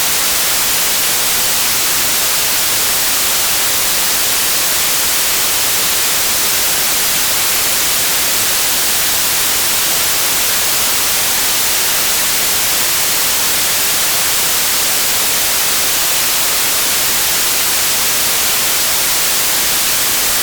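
Steady, loud white noise like an untuned television's static: an even high-pitched hiss that never changes.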